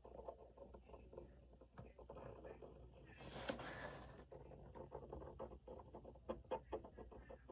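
Felt-tip marker scratching faintly on paper in short, irregular strokes as a pencil drawing is outlined, with a breath about three seconds in.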